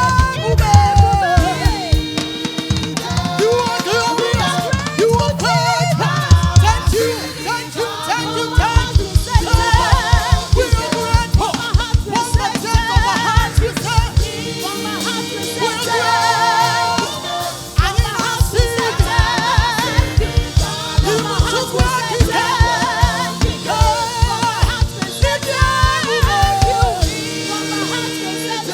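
Gospel choir singing over a live band with a steady kick-drum beat.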